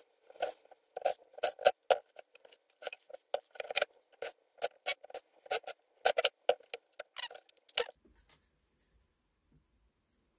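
Makita cordless impact driver running in short bursts, several a second, backing screws out of a metal power-supply case. It stops about eight seconds in.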